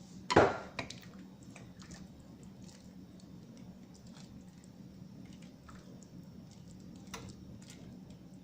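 Quiet kitchen sounds at a soup pot: a sharp knock about half a second in, then faint soft wet squishing and scattered small clicks over a steady low hum, with one more small knock near the end.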